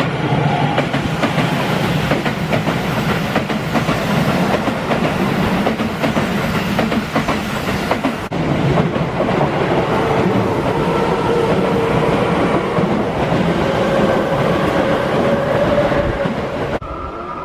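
Keihan electric trains passing close by at a level crossing, wheels clattering over the rail joints. The sound changes abruptly about eight seconds in and again near the end, where it turns quieter.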